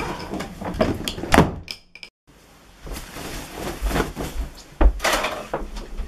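A door knocking and bumping shut, then, after a short break, more knocks and thuds with cloth rustling as clothes are handled.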